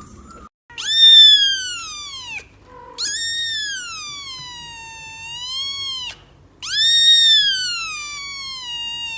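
An animal calling: three long, high, drawn-out cries, each sliding down in pitch and then levelling off or turning up at the end. The first is the loudest.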